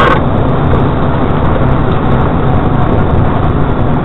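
Steady road and engine noise of a moving car, picked up by a dash camera's low-quality microphone.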